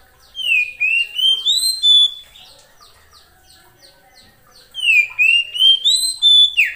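Oriental magpie-robin singing: two phrases of about five short, upslurred whistles, each note a little higher than the last, with a pause of about two seconds between them. The second phrase ends in a falling slur. Faint short chirps come in the gap.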